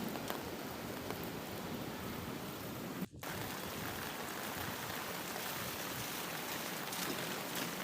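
Steady rain falling, an even hiss with no distinct drops standing out. The sound cuts out for an instant about three seconds in, then carries on unchanged.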